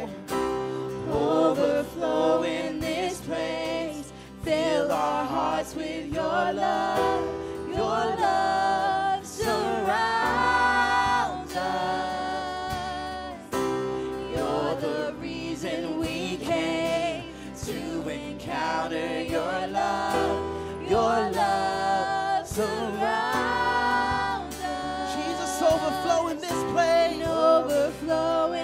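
Live contemporary worship song: a man singing the lead over a strummed acoustic guitar and band accompaniment.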